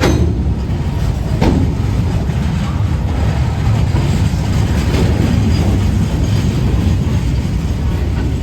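Indian Railways train rolling along the track, a steady heavy rumble of wheels and coaches. Two sharp clanks sound near the start, about a second and a half apart.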